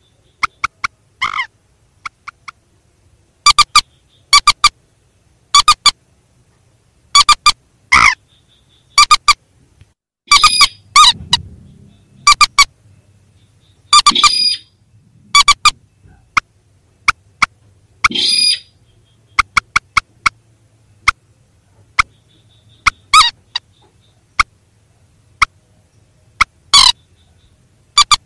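Recorded calls of rails (mandar and sintar), short sharp repeated notes that come irregularly, singly or in quick clusters of two or three, with gaps of about a second between them.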